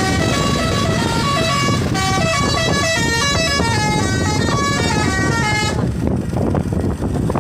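Bus telolet horn of the basuri type playing a long, fast tune of stepping notes, which cuts off about six seconds in, over steady engine and traffic rumble.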